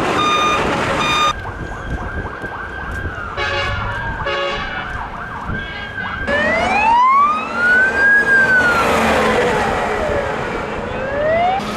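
Emergency vehicle siren wailing in long slow sweeps: its pitch glides down, then about six seconds in rises and falls again in one long sweep and starts to rise once more near the end. Short horn honks sound at the start and again about four seconds in.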